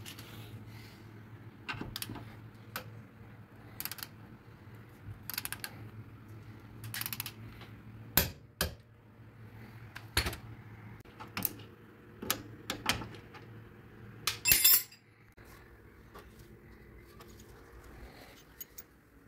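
Scattered metallic clinks and knocks of hand tools and suspension hardware being handled, over a faint steady hum, with a louder rattling burst about three-quarters of the way through.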